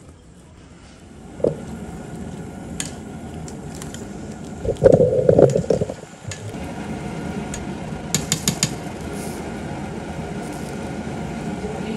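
Baby corn dropped into a steel pot of water with a splash, then stirred with a wire spider strainer in a loud, busy stretch near the middle, with a few quick metal clinks of the strainer on the pot afterwards. Under it, the pot on the gas burner gives a steady bubbling hiss.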